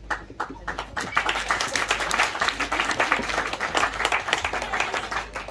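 A roomful of wedding guests applauding. A few scattered claps swell into dense clapping about a second in and thin out near the end.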